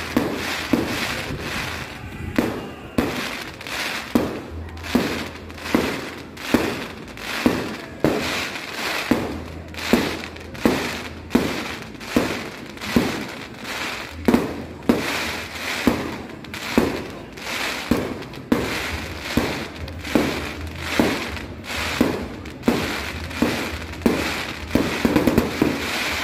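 Fireworks display: aerial shells bursting one after another in an even series, about one bang every three-quarters of a second, with a quicker cluster of cracking reports near the end.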